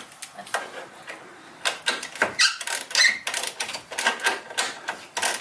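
Irregular metal squeaks and clicks as a stuck rear shock-mount bolt on a Jeep Wrangler JK is wiggled and pulled while the shock is pried up and down with a flat pry bar; the loudest squeak comes about three seconds in.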